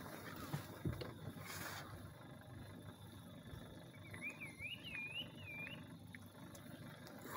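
A bird calling a quick series of about five wavering whistled notes, starting about four seconds in, over a faint low rumble.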